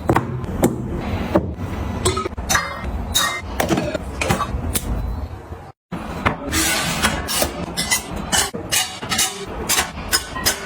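Household items being handled and set down, with many short clicks, taps and knocks of containers and packaging. The sound drops out briefly about six seconds in, then the clicking resumes.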